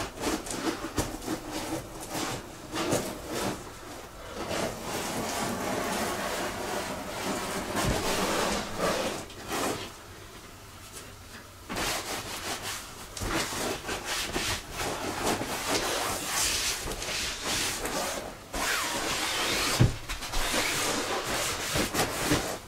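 Sponge wiping and scrubbing over the PVC tube of a Seahawk 2 inflatable boat: irregular rubbing strokes that pause for a couple of seconds about halfway, with a sharp knock near the end.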